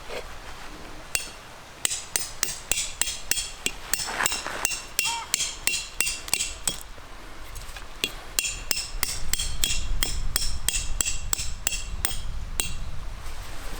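Tent pegs being hammered into the ground: two runs of quick, ringing strikes, about three a second, with a short pause between them.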